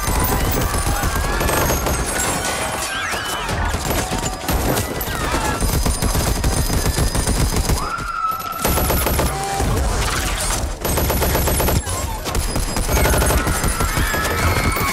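Heavy automatic rifle fire from several guns at once, a dense rapid fusillade that breaks off briefly about eight seconds in and then resumes.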